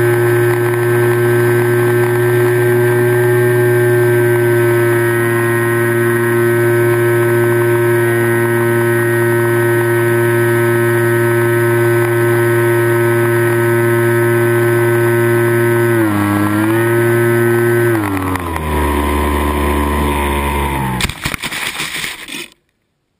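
Radio-controlled model plane's motor and propeller running at a steady pitch. It dips briefly about sixteen seconds in, then drops lower as the throttle comes back. Near the end there is a short clatter of knocks as the plane comes down in the grass, and the sound cuts off abruptly.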